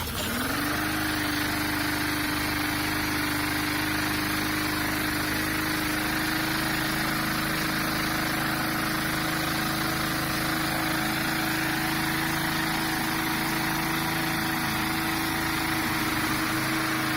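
Lawnmower's small single-cylinder engine catching and spinning up within the first half second, then running at a steady, even speed, sounding smooth after a new carburetor diaphragm and fresh oil.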